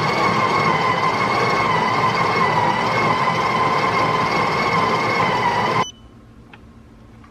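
Built-in grinder of a bean-to-cup espresso machine grinding coffee beans: a steady motor whine that cuts off suddenly about six seconds in.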